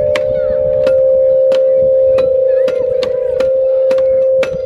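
Outdoor playground metallophone with metal tube bars, struck unevenly with two mallets about twice a second. Each strike rings on into a sustained tone that overlaps the next.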